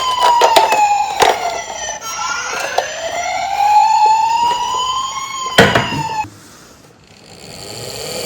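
A toy emergency vehicle's electronic wail siren sweeping slowly up and down in pitch, with a sharp crack about a second in and a loud bang at about five and a half seconds. The siren cuts off shortly after the bang, and a rising whine starts near the end.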